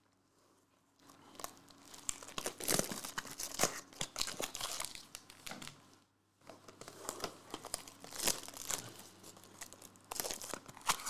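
Foil wrappers of Bowman Sterling trading-card packs crinkling and tearing as they are handled and opened. The sound comes in two spells, with a brief lull about six seconds in.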